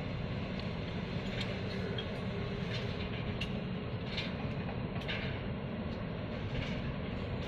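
Low, steady rumble of a Taiwan Railway passenger train approaching from a distance, with a few short high ticks scattered through it.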